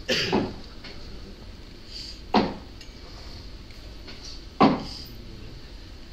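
Four sharp knocks: two in quick succession at the start, then single ones about two seconds apart.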